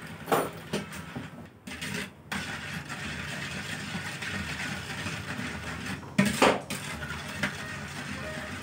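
Metal ladle stirring cooked sago pearls in water in a stainless steel pot: water sloshing, with scrapes and clinks of the ladle against the pot wall as the sago is rinsed of its slime. Water is poured in from a plastic jug at first, and there are two loud clanks, one about a third of a second in and one around six seconds in.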